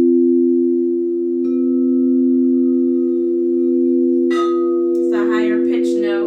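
Crystal singing bowls tuned to C and F ringing together in a steady, sustained two-note drone. A light strike comes about a second and a half in and another past four seconds, each adding a higher ringing overtone.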